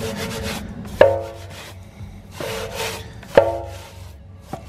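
Bristle wheel brush scrubbing a soapy truck wheel in short strokes, with two sharp knocks, each followed by a short ring, about a second in and again near three and a half seconds.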